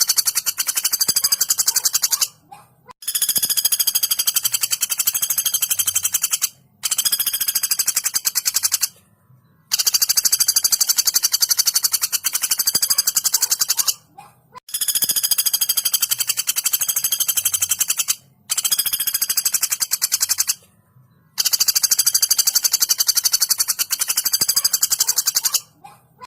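Female common flameback woodpecker giving long, very fast rattling calls, about seven in a row, each two to four seconds long with short pauses between them.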